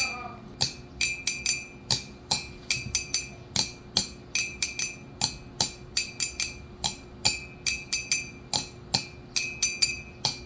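Glass being struck over and over in quick, uneven succession, about three clinks a second, each a sharp tap with a brief high ringing.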